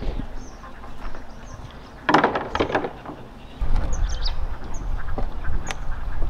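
Birds calling: thin high chirps throughout, with a loud run of calls about two seconds in. A low, steady rumble sets in about halfway through.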